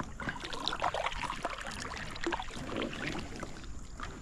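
Water splashing and sloshing in irregular small bursts as a hooked largemouth bass is fought and brought in at the surface of the creek.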